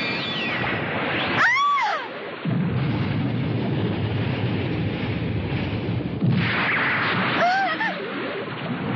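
Cartoon sound effect of a huge column of water erupting from a river: a loud, steady rushing roar that grows heavier about two and a half seconds in. Two short swooping tones rise and fall, one near two seconds and one near the end.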